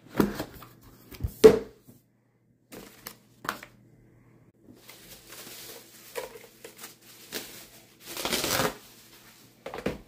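Unboxing handling noises: a cardboard box being opened and handled with scattered knocks, the loudest a sharp knock about a second and a half in, then a plastic bubble-wrap sleeve crinkling and rustling as it is pulled off the keyboard, loudest a couple of seconds before the end.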